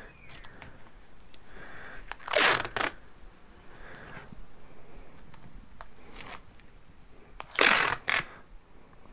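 Tape pulled off the roll twice: each a loud ripping pull of about half a second, ending in a quick second rip as the strip comes free, with faint rustling of tape and cardboard between.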